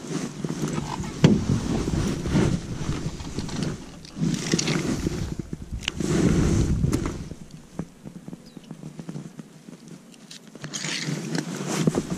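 Wind buffeting the microphone in gusts that swell and fade every second or two, with a few small clicks as fishing tackle is handled.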